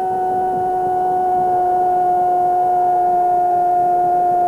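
A football commentator's long drawn-out "goooool" cry, one high shouted vowel held on a steady pitch without a break.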